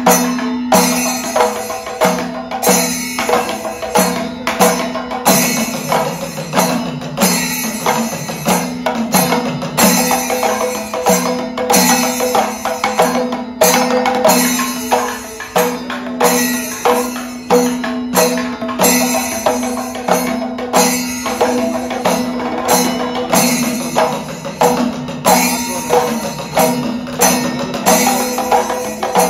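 Panchavadyam percussion ensemble playing thriputa: a row of thimila hourglass drums struck by hand, with maddalam barrel drums, in a dense rhythm. A louder stroke lands about once a second, over a steady ringing drone.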